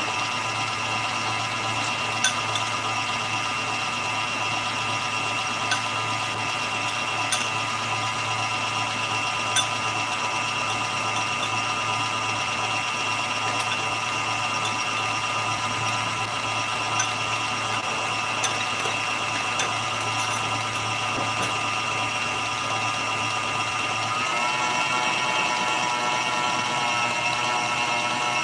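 Electric stand mixer running steadily as its whisk beats egg whites and sugar into meringue, with a few light clicks along the way. Near the end its whine steps up in pitch.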